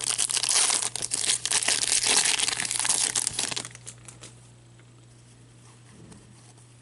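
Foil wrapper of a hockey card pack crinkling and tearing as it is opened by hand, a dense crackle that stops about three and a half seconds in.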